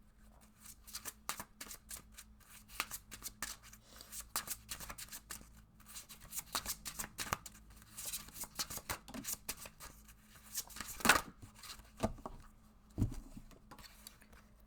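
A deck of reading cards being shuffled by hand: a long run of quick, irregular card flicks and rustles, with a louder snap about eleven seconds in and a dull thump a couple of seconds later.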